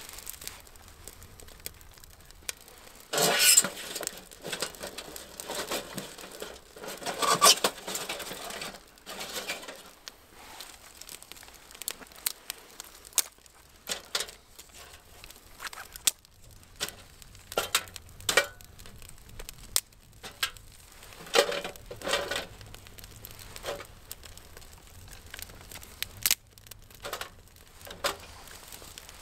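Dry grass tinder and thin twigs rustling and snapping as they are handled and fed into a small fire in a steel box stove. Louder rustling bursts come about 3 and 7 seconds in, with scattered short crackles and snaps between them.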